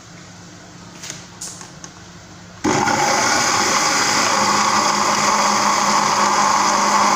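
A few light knocks, then about two and a half seconds in an electric countertop blender switches on and runs steadily, grinding chopped onion and water into a smooth liquid.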